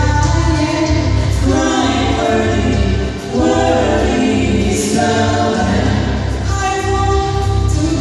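Mixed vocal trio, two women and a man, singing a gospel song in harmony through microphones, with a steady low bass underneath. The phrase breaks briefly a little over three seconds in, then the voices come back in together.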